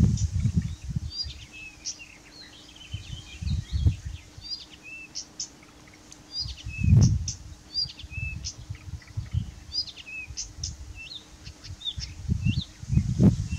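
Blyth's reed warbler singing: an unhurried, continuous string of short, varied high notes and chirps, with some motifs repeated. Gusts of wind rumble on the microphone at the start, about a quarter of the way in, about halfway, and again near the end.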